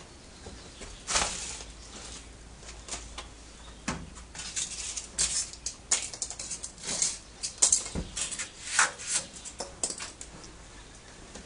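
Small trailer-kit parts and packaging being handled: a run of light rustles and sharp clicks as pieces are taken out and set down on a concrete floor, sparse at first and coming thick and fast in the middle.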